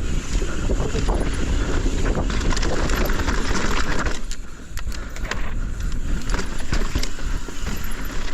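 Yeti SB165 mountain bike riding down a loose, dry dirt trail. Wind rumbles on the microphone, the tyres crunch over dirt and rock, and the bike gives many clicks and rattles. The noise eases briefly about halfway through.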